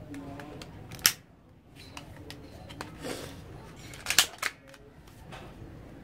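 Sharp clicks and knocks of a plastic toy rifle being handled: one sharp click about a second in, a fainter one about three seconds in, and a louder cluster of two or three just after four seconds.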